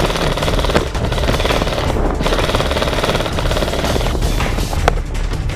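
Airsoft guns firing in rapid automatic bursts, mixed with background music.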